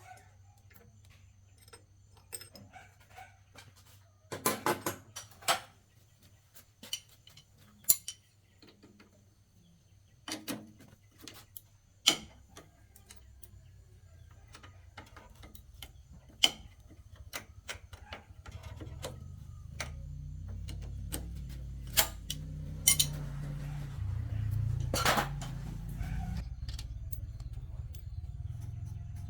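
Metal tools and parts clinking and knocking in irregular, scattered strikes during mechanical repair work. A low, steady rumble builds up about two-thirds of the way through and continues to the end.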